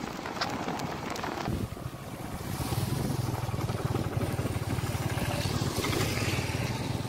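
Motorcycle engine running steadily while riding, with wind buffeting the microphone. It gets louder about two seconds in.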